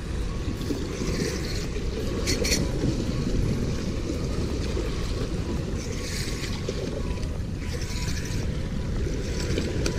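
Wind buffeting the microphone over the wash of small waves on rocks, a steady low rumble, with a few faint higher rasping patches.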